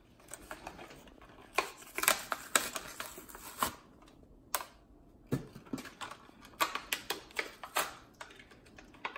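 Hot Wheels blister pack being torn open by hand: the stiff clear plastic blister crackles and clicks as the cardboard backing is peeled and ripped away from it, in irregular sharp clicks with a short pause midway.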